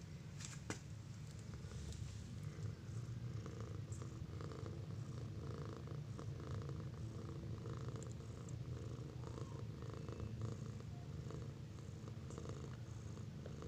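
Steady, close-up purring from a cat and her nursing ginger kittens.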